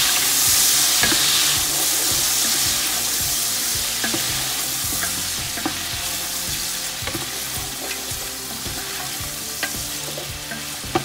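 Chicken pieces sizzling in hot oil with browned onions as they are seared in a large stockpot. A wooden spoon stirs them, knocking against the pot now and then. The sizzle slowly dies down.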